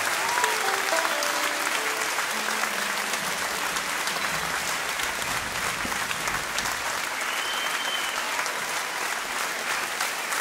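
Theatre audience applauding steadily at the end of a performance. In the first few seconds a handful of instrument notes step downward under the clapping.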